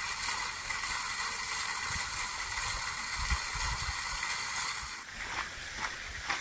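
Garden fountain's single jet splashing down into its round basin, a steady hiss of falling water. About five seconds in it gives way to footsteps on a gravel path.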